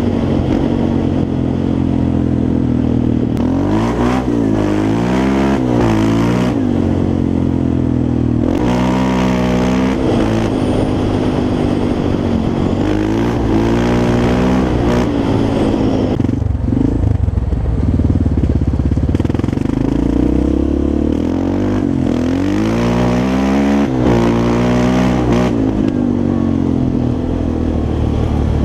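Yamaha Raptor 350 quad's single-cylinder four-stroke engine running under a rider, its pitch rising and falling again and again as the throttle is worked. There is a rougher, lower rumble a little past the middle.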